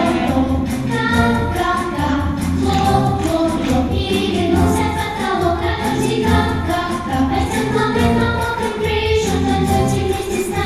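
A song performed live with several voices singing together over a backing track that has a steady beat and a bass line.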